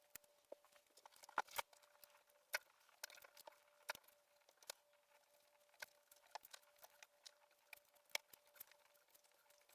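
Scattered light clicks and taps of ribbons and their hangers being handled and moved on a rack, irregular and soft, with a couple of sharper clicks a little over a second in. A faint steady hum lies underneath.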